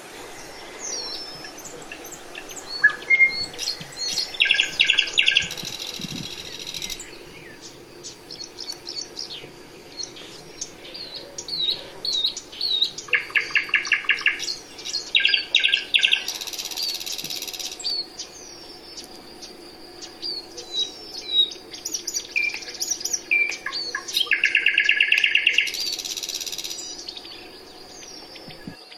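Several songbirds singing: short high chirps and whistles broken by fast trills, each a second or two long, that come back several times.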